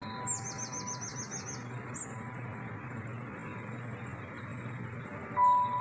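A songbird chirping in a forest: a quick run of about eight high, descending chirps in the first two seconds, then a single chirp, over a steady hiss and a faint steady high tone. The ambience grows louder near the end.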